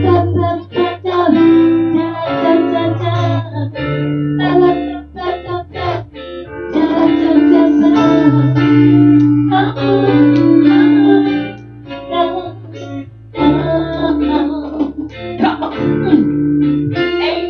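Song music led by a plucked guitar over sustained bass notes that change every second or two.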